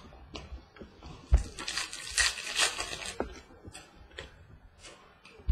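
A trading card pack's wrapper crinkling as it is torn open, with a thump on the table about a second in and light clicks of cards being handled afterwards.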